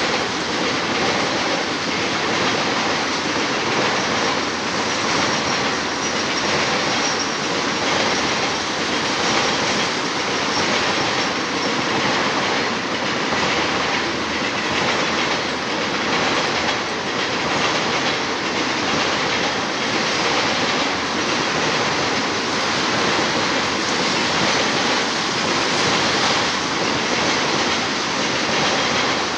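Freight train of tank cars rolling past: a steady rumble of steel wheels on the rails, with a repeating clatter as the wheels cross rail joints.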